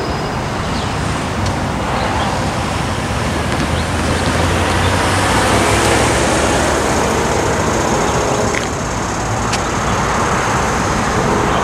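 Road traffic at a level crossing: a small SUV drives across close by, its tyre and engine noise swelling to a peak about six seconds in and then fading, over steady traffic noise.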